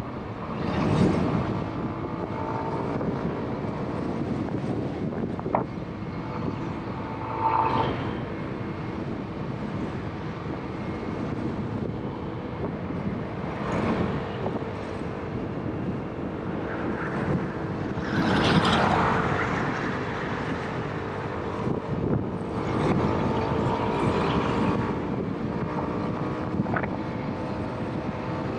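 Motorbike engine running steadily at highway cruising speed, heard from the rider's position, with rushes of wind noise that swell every few seconds.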